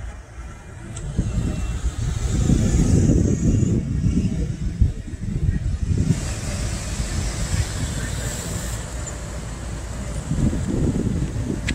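A motor vehicle running close by: a low, uneven rumble that swells a couple of seconds in and again near the end.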